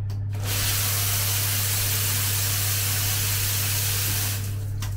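Handheld shower head spraying water in a bathroom, a loud even hiss that starts about half a second in and shuts off near the end, followed by a short click. A steady low hum runs underneath.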